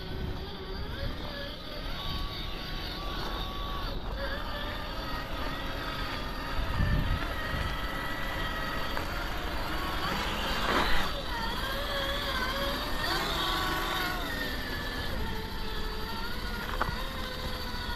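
Electric motor and gear drive of a 1/7-scale RLAARLO MK-07 4x4 RC Jeep whining, its pitch rising and falling with the throttle, over a low rumble. A short, louder noise comes about eleven seconds in.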